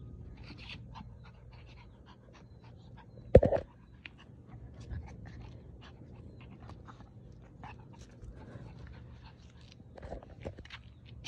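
A dog panting during play, with many scattered light clicks throughout and one sudden loud thump about three and a half seconds in.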